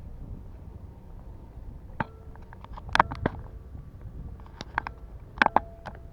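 A series of sharp knocks and clatters of hard objects, loudest in clusters about three and five and a half seconds in, some ringing briefly, over a steady low rumble of wind.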